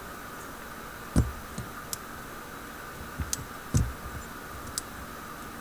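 Light scattered clicks of a lock pick and tension wrench working in a Brinks laminated padlock, with two louder knocks about a second in and near four seconds in as the lock is handled, over steady background noise.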